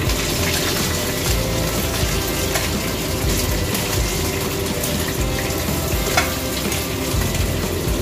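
Small barracuda frying in oil in a pan: a steady, loud sizzle, with a few sharp clicks of metal tongs against the pan as the pieces are turned and lifted out.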